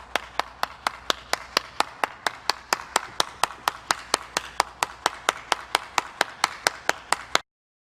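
Steady, evenly spaced claps at about four and a half a second, cutting off abruptly about seven and a half seconds in.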